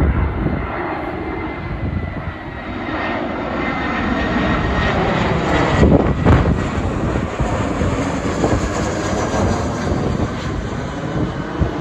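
Aircraft engines running with a loud, steady rush as a plane lands, with a thin high whine over the first few seconds that fades out.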